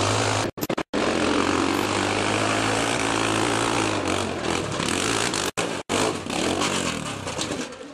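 Dirt bike engine held at high revs on a steep hill climb, with a few brief moments where the sound cuts out. It gets quieter near the end as the bike goes down.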